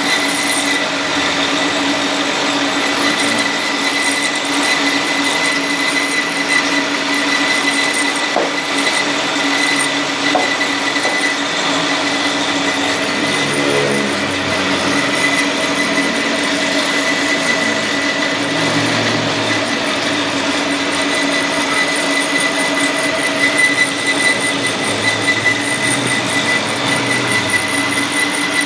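A shop machine running steadily, with a constant low hum and a high whine over a dense mechanical noise.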